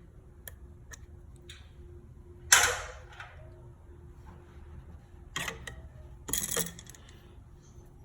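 Handling noise from hands working on the light-switch wiring: scattered small clicks, then three louder scraping, rustling bursts about two and a half, five and a half and six and a half seconds in, the first the loudest.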